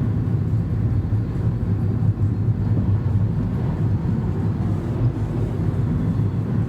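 Steady low rumble of a car on the move, heard from inside the cabin: engine and road noise with no change in pace.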